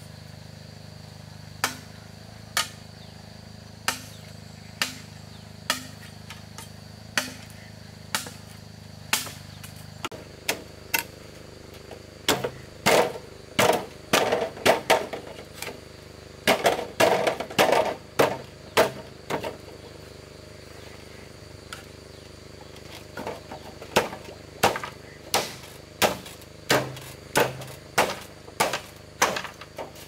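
Repeated sharp blows of a hand tool striking, about one a second at first, then in quick flurries in the middle, then steady again near the end.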